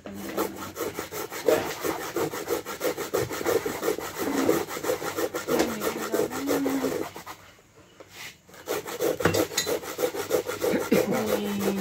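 Coconut being grated by hand on a coconut grater over a metal pot: rapid, even scraping strokes, with a break of about a second roughly two-thirds of the way through.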